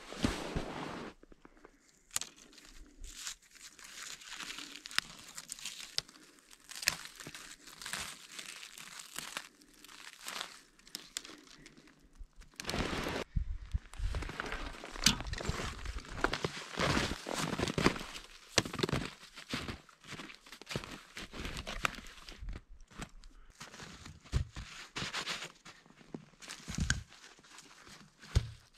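Irregular crunching and rustling in snow: footsteps and gear and cut logs being handled, in uneven bursts with no steady tone.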